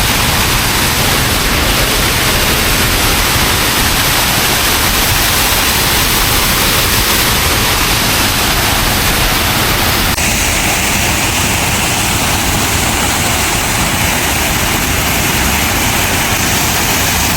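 Loud, steady rush of falling water from a hot-spring waterfall, with an abrupt change in its tone about ten seconds in.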